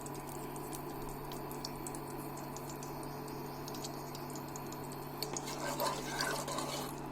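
Ghee and soybean oil heating in a kadai, giving faint scattered crackles over a steady low hum.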